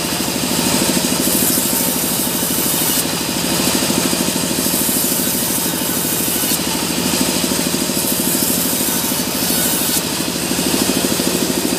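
Sawmill band resaw slicing a log section into thin boards: the blade hisses through the wood in repeated passes, one every couple of seconds, over the steady drone of the machine's drive engine.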